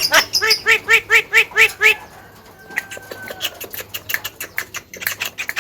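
Javan myna (jalak kebo) calling: a fast run of repeated pitched notes, about five a second, for the first two seconds, then a few softer notes and a quick run of clicks near the end.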